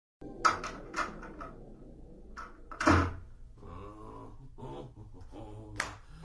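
A door being opened and shut in a small room: latch clicks about half a second and one second in, and the door closing with a thump about three seconds in. A further sharp click comes near the end.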